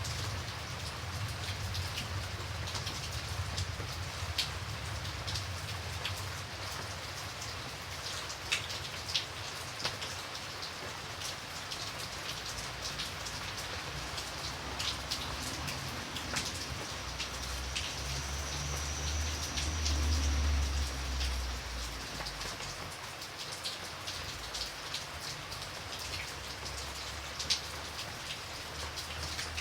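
Steady rain, with single drops ticking sharply on a nearby surface. A low rumble swells and fades a little past the middle.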